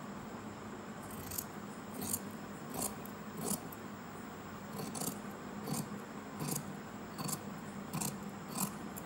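Tailor's scissors snipping through folded cloth along a chalk line, about ten cuts evenly spaced roughly two-thirds of a second apart, starting about a second in.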